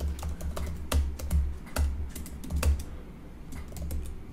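Typing on a computer keyboard: irregular, quick key clicks with dull low thuds under them.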